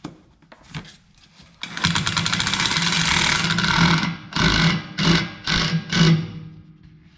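Cordless impact driver hammering a bolt: a few light clicks, then a continuous run of about two seconds, then four short bursts.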